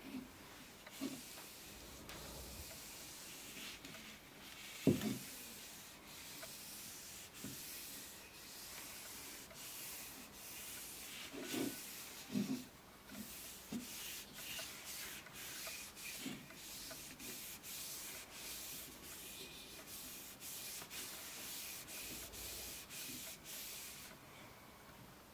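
A cloth rubbing over the wooden body of an antique hand plane, a steady hiss of many quick strokes that stops shortly before the end. A few soft knocks come as the plane is handled.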